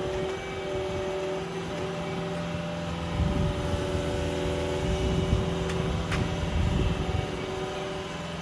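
Skid-steer loader's diesel engine running with a steady whine, working hard, with heavier rumbling from about three to seven seconds in.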